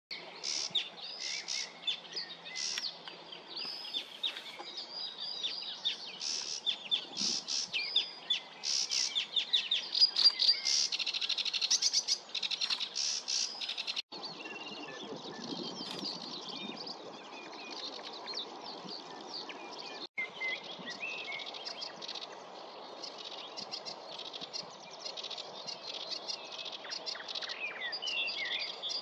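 Sedge warbler singing: a long, fast, varied song of rapid notes and trills that hardly pauses. The recording is cut twice, and the later parts are fainter, over a steady background rush.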